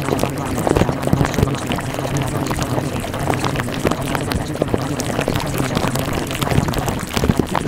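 Steady pouring, bubbling water sound full of small pops and clicks, over a low steady hum.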